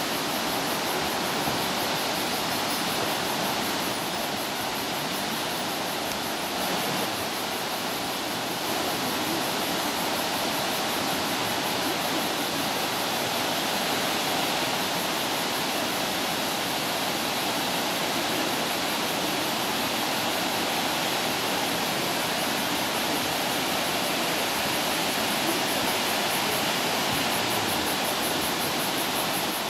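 Kirifuri Falls, a two-tiered waterfall about 75 m high, roaring steadily as its water crashes down and sprays into mist.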